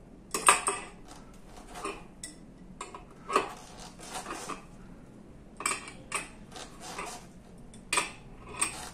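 Irregular sharp metallic clinks and knocks of a tool working the axle nut of a gearless e-bike hub motor, turned to draw the stator into its magnet-lined casing; the loudest clink comes about half a second in.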